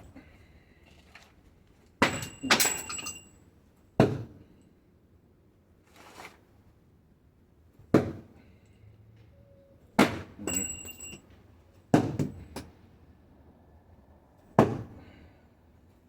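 Steel door hinge pins, thrown as spikes, striking a target one after another, about one hit every two seconds. Several strikes are followed by a short metallic ring.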